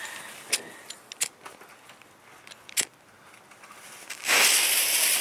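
A few sharp clicks, then about four seconds in a jumping-jack ground-spinner firework ignites and gives off a loud, steady hiss.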